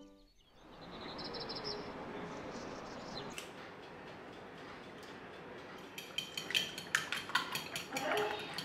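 Eggs cracked into a white ceramic bowl and beaten by hand, the utensil clicking rapidly against the bowl from about six seconds in, over a steady hiss. A single sharp crack about three seconds in is the egg broken on the bowl.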